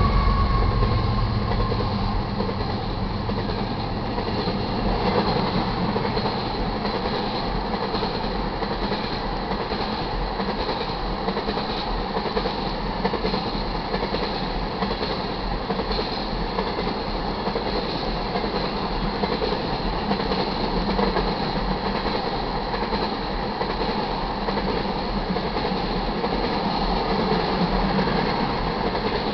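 Freight train passing at speed: the trailing GE C44-9W locomotive's 16-cylinder diesel rumbles by and fades over the first few seconds, then a long line of ethanol tank cars rolls past with a steady rumble of wheels and rail clatter.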